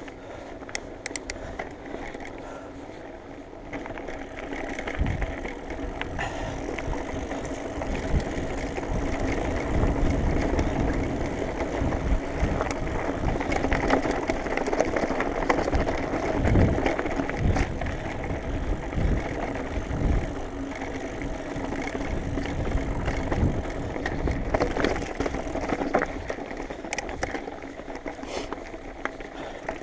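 Mountain bike rolling fast over dirt and rocky singletrack: tyre noise on the gravel with the bike rattling and thudding over bumps, and wind rumbling on the microphone. It grows louder through the middle as the speed picks up, then eases near the end.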